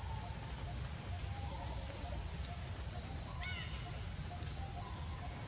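Forest ambience: a steady high insect drone over a low rumble, with faint scattered calls in the background. One short, high, arching call sounds about three and a half seconds in.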